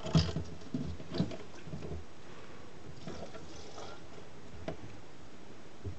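Plastic fuel pump module knocking and scraping against the rim of the fuel tank opening as it is lowered into the tank, with several knocks in the first two seconds, then a few faint taps and a small knock near the end.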